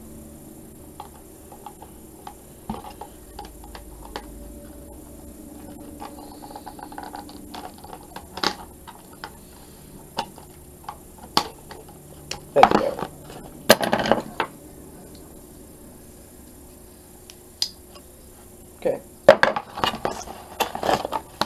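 Scissors snipping the packaging and the blaster's plastic-and-cardboard box being handled: scattered small clicks, with a couple of louder handling bursts about 13 seconds in and a cluster of them near the end.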